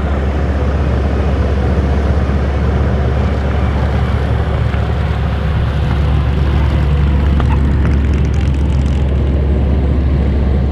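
A Supermarine Spitfire Mk IXe's Rolls-Royce Merlin V12 engine and propeller, running loud and steady at high power on the takeoff roll.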